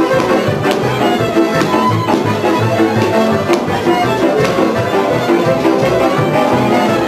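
Traditional folk string-band music led by a fiddle, over a steady pulsing bass beat, with a few sharp clicks in the mix.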